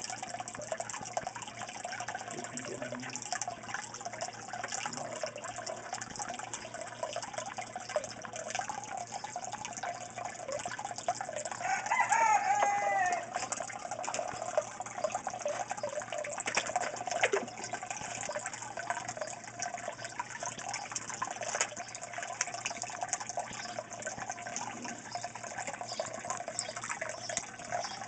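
Water running and splashing steadily into the aquaponics fish tank. Wavering animal calls sound in the background throughout, with one louder call about twelve seconds in.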